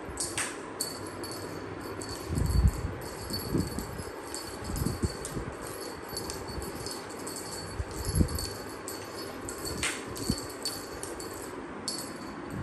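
High-pitched tinkling of small chimes or bells, with many quick rings throughout, and a few soft low thumps now and then.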